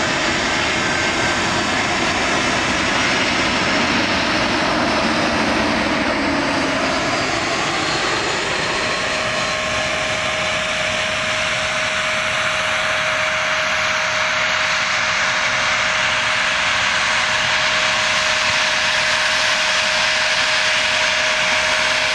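Airbus A320 jet engines on final approach and landing: loud, steady jet engine noise with a falling pitch about six seconds in as the airliner passes close, then a steady whine through touchdown.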